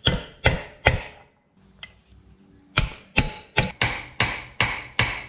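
Hammer striking a steel pin punch to drive a wheel stud into a Toyota Land Cruiser FJ40 front hub and brake rotor, metal on metal. There are three blows, a pause of about a second and a half, then seven quicker blows at about two and a half a second, each ringing briefly.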